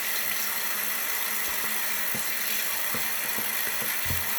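A small electric motor buzzing steadily, with a few faint clicks over it.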